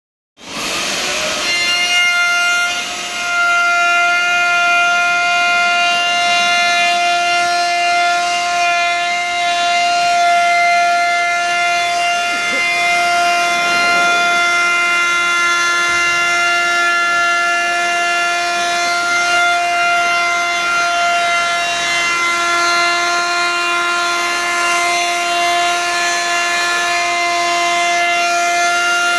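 Handheld electric router running at high speed with a steady high whine while its bit cuts into a white board.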